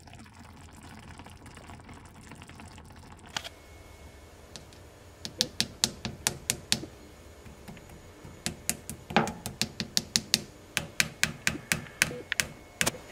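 Metal spoon clicking and tapping against a frying pan and grapefruit halves: a run of sharp, irregular clicks, a few a second, starting about five seconds in after a quiet stretch.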